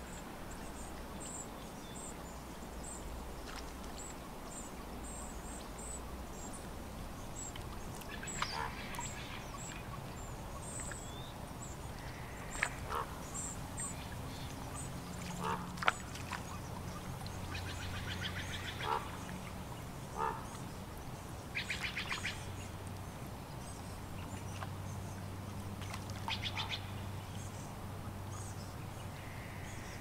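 Water birds giving short, nasal, pulsed calls now and then over the soft steady sound of a calm lake. A faint high chirping repeats through the first half, and a low steady hum sets in about halfway through.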